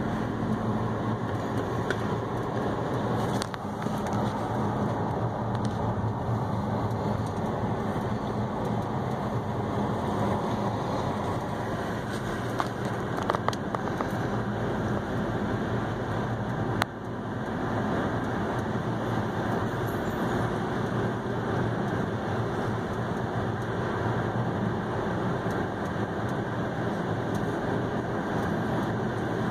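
Steady road noise of a car driving at cruising speed, heard from inside the cabin: tyres on pavement and engine hum running evenly. A sharp click sounds a little past the middle.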